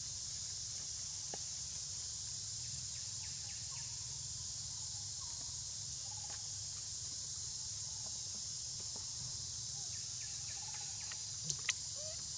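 Steady high-pitched insect chorus, with a few faint short chirps scattered through it and two sharp clicks in quick succession near the end.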